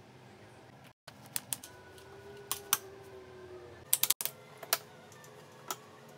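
Sharp plastic clicks and snaps from an Uppapets Aroa Plus pet stroller's canopy frame as it is pulled up and opened over the basket, with a quick cluster of clicks about four seconds in.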